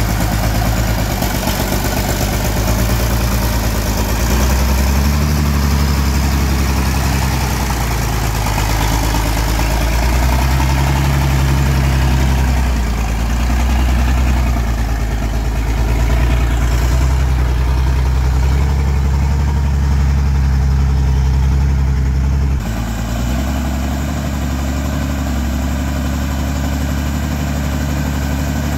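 Engine of a homemade logging truck running steadily under load. About three-quarters of the way through it drops abruptly to a slightly lower, quieter running.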